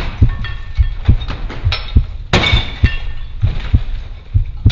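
Mirror glass cracking and breaking as the panel is struck from behind, with the biggest crash about two and a half seconds in. Underneath runs a steady heartbeat-like thumping pulse.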